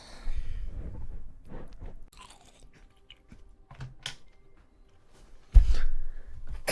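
A young woman's wet allergy sneezes: a spluttering burst at the start, short catching inhales, then one sudden explosive sneeze about five and a half seconds in, the loudest sound.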